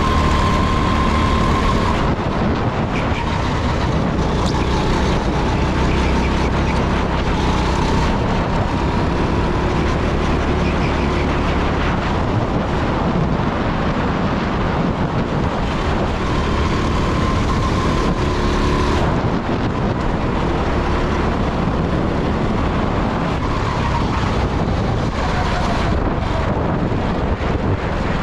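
Go-kart engine running at high revs at full speed, with wind rushing over the onboard microphone. The engine pitch falls over the last few seconds as the kart slows for a corner.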